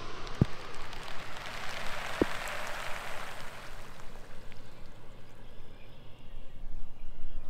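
Rice seed dropped from a seeding plane pattering down onto a flooded field like rain, building to its thickest about two to three seconds in and then thinning out. Two sharp taps, about half a second and two seconds in, stand out from the pattering.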